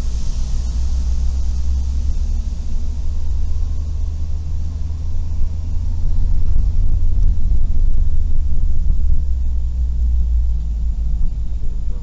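Suzuki Every kei van driving, heard from inside the cab as a steady low rumble of engine and road noise that grows louder for a few seconds past the middle.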